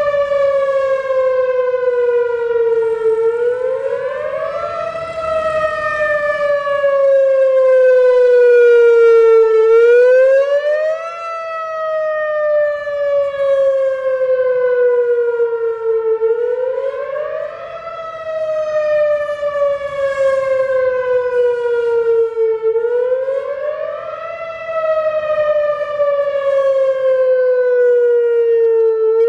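Whelen WPS-4004 electronic outdoor warning siren sounding its wail in a tornado-siren test. In each cycle the pitch climbs quickly for a second or two, then falls slowly for about five seconds, repeating about every six and a half seconds, and the loudness swells and fades. It is very loud, enough to overload the microphone.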